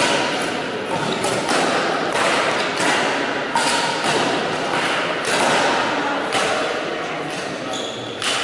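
Badminton play in a sports hall: repeated sharp knocks, about one a second, from rackets hitting shuttlecocks and players' feet landing on the court floor, each echoing in the hall.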